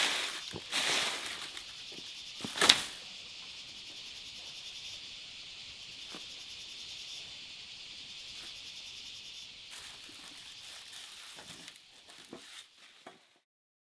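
A few short rustling scrapes in the first three seconds, then a steady high hiss that cuts off abruptly near the end.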